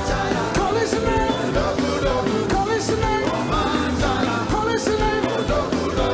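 Upbeat praise-and-worship music: singing over a band with a steady driving beat.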